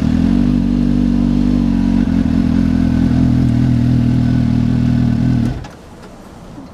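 2015 Suzuki GSX-S750's inline-four engine running at low revs as the motorcycle creeps forward, its note shifting slightly about two seconds in. The engine sound drops away abruptly near the end.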